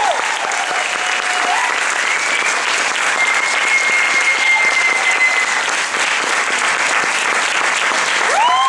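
Audience applauding, with a few high, held calls rising over the clapping.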